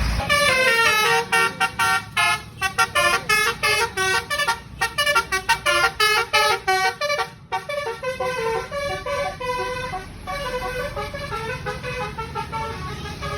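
A bus's multi-tone telolet horn playing a tune, a quick run of short stepped notes, then slower, softer notes from about halfway through.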